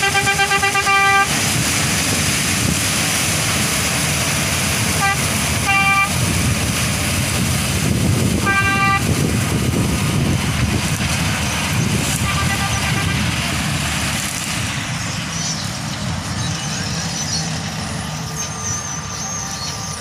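Sunshine 1100 combine harvester running as it cuts wheat, its engine and machinery noise steady at first and then slowly fading as it moves off into the distance. A horn sounds through the first second, then gives short toots about five, six and nine seconds in.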